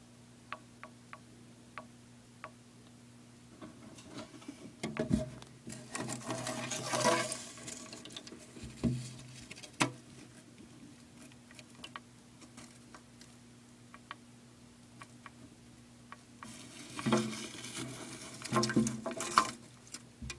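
Rustling, scraping and sharp clicks of handling in and against a glass terrarium, in two spells, the second ending just before the end, over a steady low hum.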